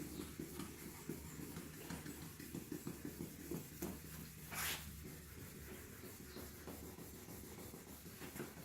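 Faint, uneven rubbing of wet 1500-grit sandpaper being worked by hand over a headlight lens, taking out the oxidation and the coarser sanding grooves. A single short hiss about halfway through.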